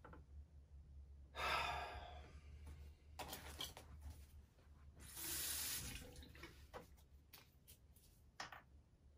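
Bathroom sink tap turned on in short runs, water splashing into the basin three times, the last run about a second long. Small clicks and knocks follow as things are handled at the sink.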